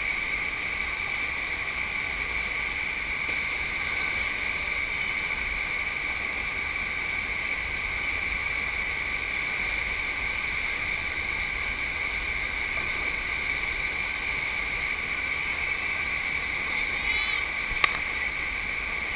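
Steady rush of water pouring over a FlowRider sheet-wave machine, with one sharp click near the end.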